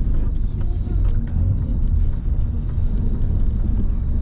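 Steady low rumble of a Škoda car's engine and tyres heard from inside the cabin while driving.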